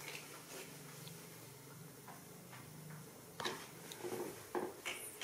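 Faint room sound with a low steady hum, then a handful of soft, sharp taps and clicks in the second half.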